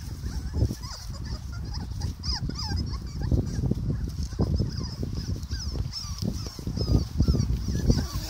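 Young puppies, about three and a half weeks old, squeaking and whimpering in many short cries that rise and fall in pitch, over loud low rumbling and bumps.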